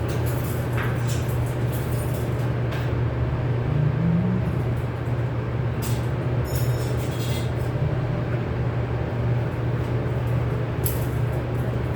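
A steady low mechanical hum, with scattered light clicks and taps over it; a few of them ring briefly like struck metal.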